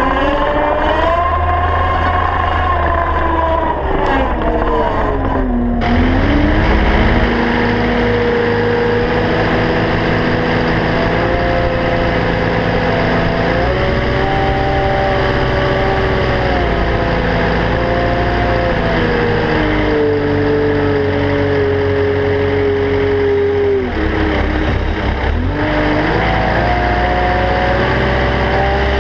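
Caterpillar 299D XHP two-speed compact track loader running under load, its engine and drive note rising and falling with the work: the pitch drops about five seconds in, climbs again around fourteen seconds, sinks near twenty-four seconds and rises again near the end.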